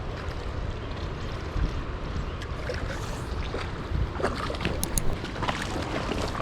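Steady wind rumble on the microphone over the rush of moving water, with a few short clicks about four to five seconds in.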